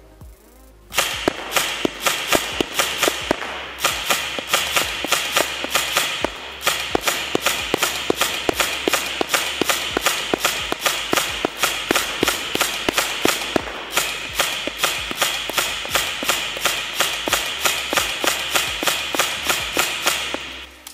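Airsoft electric gun (MK18 Mod 1 replica with a V2 gearbox, on an 11.1 V LiPo) firing single semi-automatic shots in steady quick succession, about three a second, starting about a second in.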